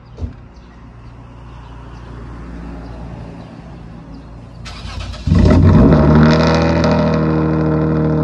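A 2007 Lexus IS250's 2.5-litre V6, ECU-tuned, cold-started: a brief thump near the start, then the starter cranks for about half a second around five seconds in. The engine catches, flares up loudly and settles into a steady, fast cold idle through the exhaust.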